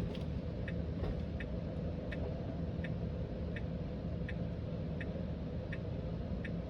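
Steady, even ticking inside a Tesla's cabin, about one and a half ticks a second, like a turn-signal click though no signal is on: a phantom ticking fault. A steady low cabin hum runs underneath.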